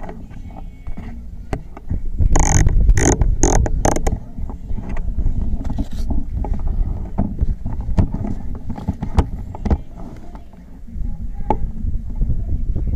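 Low rumbling wind and handling noise on a rifle-scope camera, with a louder scraping stretch a couple of seconds in. Scattered sharp clicks follow, as the scope turret is dialed.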